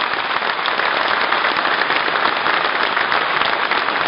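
A large audience applauding steadily, dense clapping that begins at the close of a speech.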